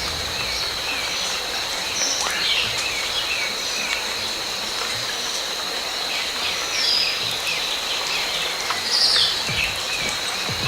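Natural outdoor ambience: many birds chirping in short calls over a steady, high insect drone and a soft hiss.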